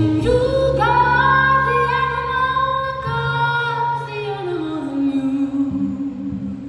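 A woman singing long held notes to her own upright double bass. About two thirds of the way through, the voice slides down to a low note and holds it.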